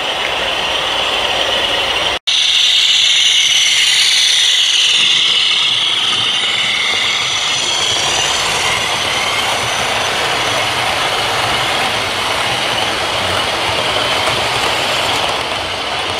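OO gauge model diesel locomotive's DCC sound decoder playing diesel engine sound through its small onboard speaker as the train runs past, mixed with wheel noise on the track. The sound cuts out for an instant about two seconds in and comes back louder, then eases off slightly.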